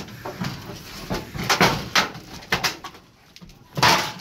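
Roofing shovel scraping and prying at the eave edge, with the soffit and fascia panels rattling and scraping as they tear loose and drop, and a louder clatter near the end. The panels come away far too easily, a sign they were barely fastened.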